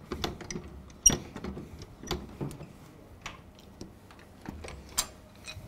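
Scattered metallic clicks and clunks of a cranking handle working the racking mechanism of a high-voltage vacuum circuit breaker cabinet as the breaker is racked out. The sharpest clicks come about a second in and near the end.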